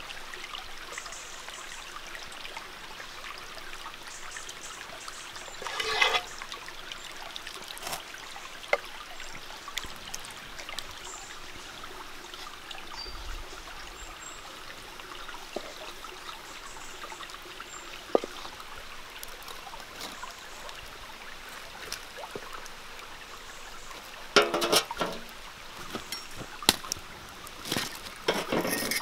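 Steady trickle of a nearby stream, with scattered soft clicks and knocks of food being layered into a clay pot. A cluster of louder knocks and clatter comes near the end as the pot is handled.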